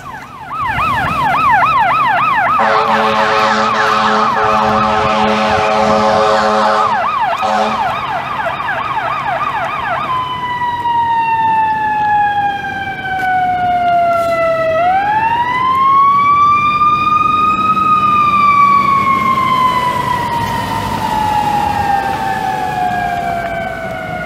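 Electronic emergency siren on a pickup truck, first in a fast yelp with a steady horn-like blast over it for about five seconds. About ten seconds in it switches to a slow wail that falls, rises and falls again.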